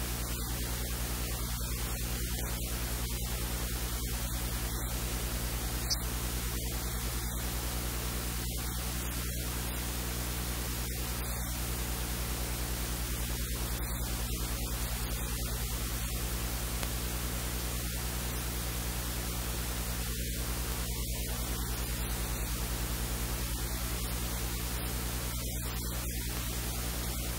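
Steady hiss with a low electrical hum underneath.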